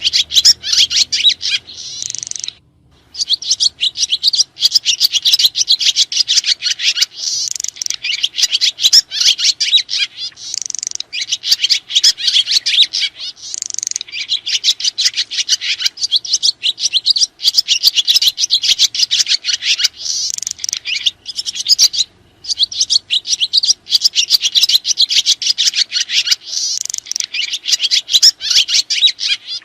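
Sriti swiftlets twittering: a dense, unbroken stream of rapid high chirps, with two short breaks, about three seconds in and again around twenty-two seconds.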